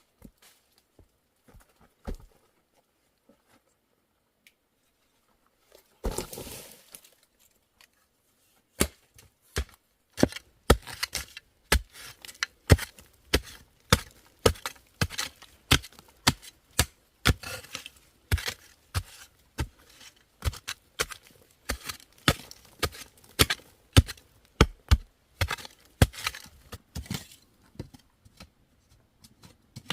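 Repeated sharp chopping strikes, roughly two a second and uneven in strength, after a short scraping rustle a few seconds in.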